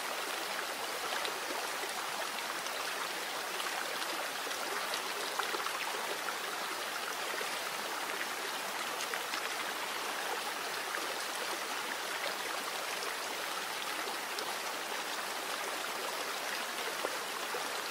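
Recorded water sounds of a flowing stream, running evenly with small trickling splashes. It is a water track laid over a subliminal recording, so no words or music are heard above it.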